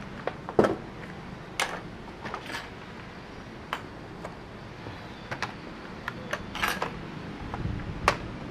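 Scattered clicks and knocks of laptop parts being handled on a workbench: an Asus A43S motherboard and its keyboard top case. A faint steady hum runs underneath.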